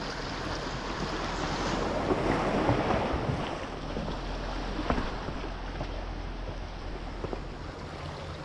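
Small sea waves washing against shoreline rocks, swelling a couple of seconds in and easing off, with wind buffeting the microphone and a faint low steady hum underneath.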